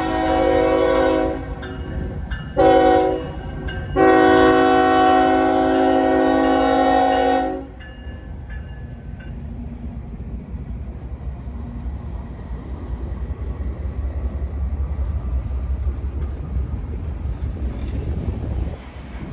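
Locomotive's multi-chime air horn sounding a long blast, a short one and a long one, the closing part of a grade-crossing signal, then the low rumble of the train passing.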